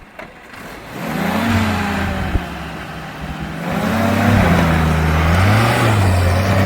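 Jeep engine revving up and down, its pitch wavering, and getting louder about four seconds in. There is one sharp knock a little after two seconds.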